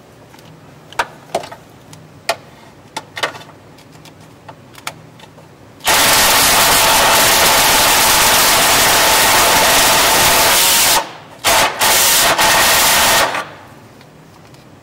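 Cordless drill running hard under load, with its bit cutting in a hole in a car's steel frame rail to open the hole up for hitch bolts. It makes one long run of about five seconds, then three short bursts. Before it come a few light clicks and knocks of the tool against metal.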